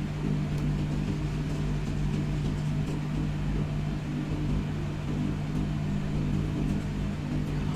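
A steady low machine hum at an even level, with a few faint ticks in the first few seconds.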